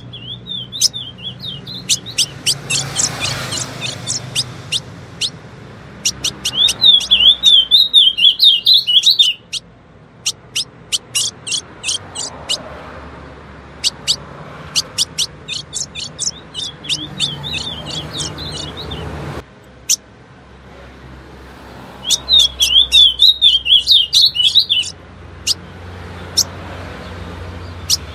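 Female ultramarine grosbeak (azulão) calling: runs of sharp, high chip notes, with two spells of fast warbling notes, about seven and twenty-three seconds in.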